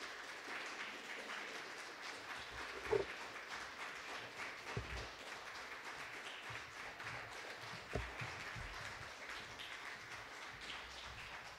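Audience applauding: a steady patter of many hands clapping, with a few dull thumps in it, the sharpest about three seconds in.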